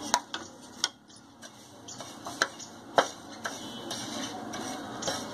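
Crushed coriander seeds dry-roasting on a hot tawa: scattered sharp clicks and taps at irregular intervals, with a faint steady hiss that grows a little stronger in the second half.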